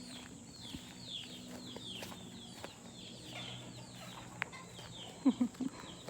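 Free-range chickens calling: a steady run of high, falling peeps, with a few short loud clucks about five seconds in.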